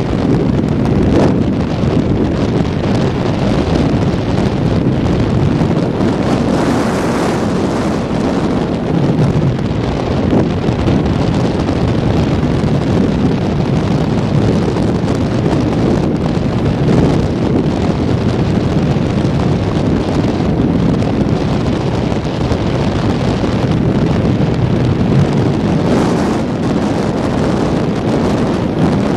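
Steady wind noise on a helmet-mounted camera's microphone while riding a 1985 Honda CB650SC Nighthawk motorcycle, with the bike's road and engine noise underneath.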